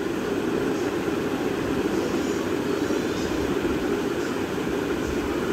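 Steady droning background noise, strongest low in pitch and unchanging throughout.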